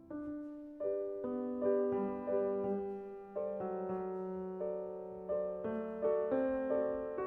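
Solo piano playing slow, gentle chords, each struck note fading before the next, about one to two a second.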